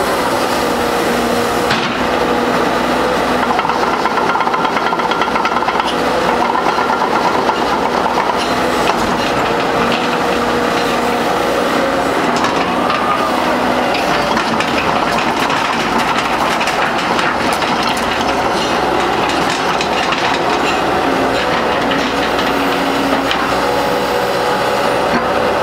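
Sumitomo S260F2 hydraulic excavator running as its boom, arm and bucket are worked and the upper body swings: steady diesel engine sound with hydraulic whine that rises and falls in pitch several times, and scattered knocks and clatters.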